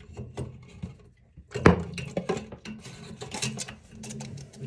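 Small clicks and knocks of a plastic cup against the metal shutoff valve and supply-line fittings as it is hung under a toilet water valve to catch drips, with one sharper knock about one and a half seconds in.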